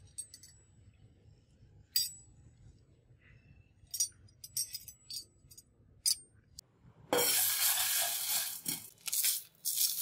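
Polished steel handle halves of a handmade butterfly knife clinking against each other in the hands: a handful of sharp metallic clicks, some with a brief high ring. About seven seconds in, a louder rushing hiss takes over for about two seconds, followed by shorter noisy bursts.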